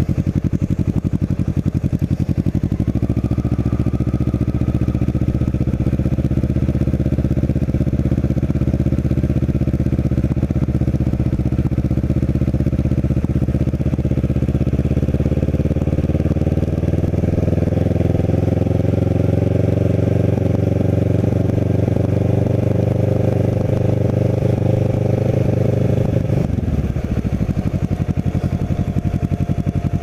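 Kawasaki Ninja 650R's parallel-twin engine running under way at low speed. Its pitch climbs gradually as the bike gathers speed, then falls away near the end as the bike slows.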